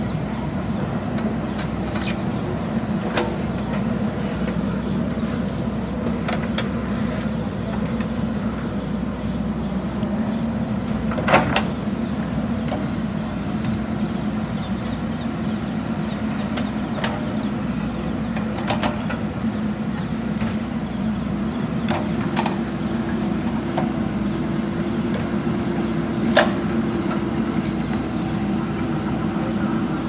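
Diesel engine of a JCB 3DX backhoe loader running steadily under load as the backhoe digs. Now and then there are sharp knocks from the bucket and arm, the loudest about eleven seconds in and again near the end.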